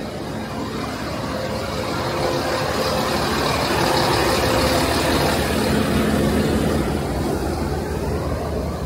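Transport for Wales diesel multiple unit idling at the platform: a steady engine rumble with a low hum, louder through the middle.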